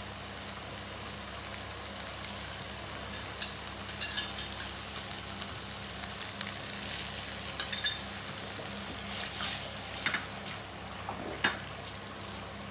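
Onions and sauce sizzling steadily in an aluminium kadai, with a slotted metal spatula stirring and now and then clinking and scraping against the pan; the sharpest clicks come a little past the middle.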